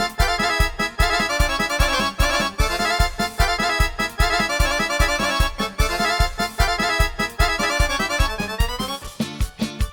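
Sampled Guerrini Superior 2 accordion voice on a Ketron Event arranger keyboard, playing a Balkan-style melody with full chords over a steady bass and drum beat. Near the end the melody drops in a falling run and the accompaniment changes.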